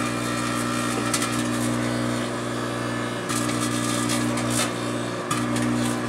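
Microwave oven running with a steady hum, with crackling and buzzing from plasma flaring off a halved grape inside.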